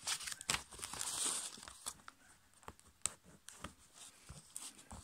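A sheet of copy paper rustling and crinkling as it is folded by hand, loudest in the first second or so, with scattered sharp clicks and taps as the folds are worked.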